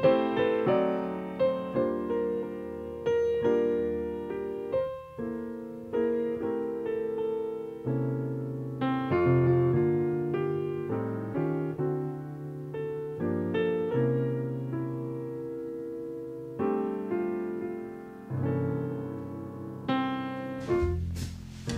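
Solo piano music, a slow piece of single notes and chords that strike and ring away. About a second before the end, another piece with a deep bass comes in.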